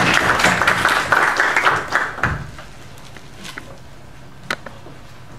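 Audience applause that dies away about two and a half seconds in, leaving a quiet hall with one sharp knock near the end.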